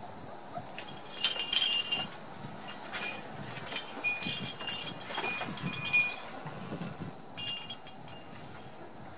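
Small metal chimes tinkling in short, irregular jingles, several times over, the loudest about a second and a half in and again about six seconds in.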